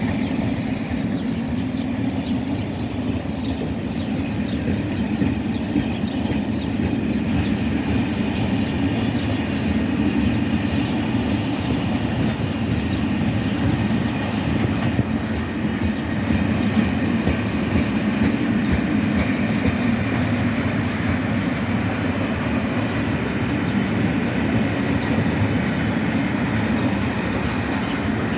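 Freight train of Eas and Eanos open wagons rolling steadily along the track, making a continuous rumble of wheels on rails. Faint clicks come through in the second half.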